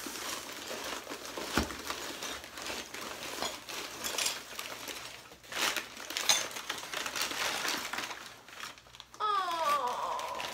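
Paper wrapping crinkling and rustling as a gift is unwrapped, with sharp clicks and clatters of loose pieces inside: the item has arrived broken. About nine seconds in comes a short disappointed groan that falls in pitch.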